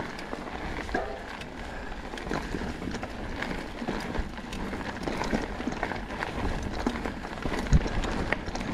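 Enduro mountain bike riding fast down a dirt singletrack: tyres rolling over dirt and roots, with the frame and chain rattling and knocking over the bumps and a harder thump near the end.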